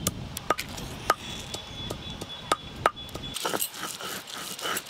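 Ginger and garlic being crushed on a stone grinding slab (sil-batta) with a hand stone: sharp, irregular knocks of stone on stone, about two a second. A little over three seconds in, it turns to quicker scraping strokes as the stone is worked across the slab, grinding them into a paste.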